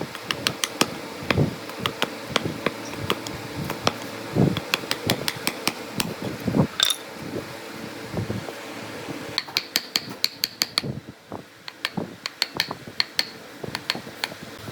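Irregular knocks, taps and clicks of hand work on wooden parts, with a brief squeak about seven seconds in, over a steady hum.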